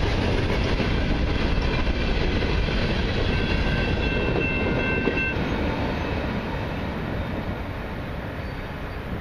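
The last cars of a long freight train rolling past, with wheels rumbling and clattering on the rails. A brief high squeal comes about three seconds in, and the sound then fades as the end of the train moves away.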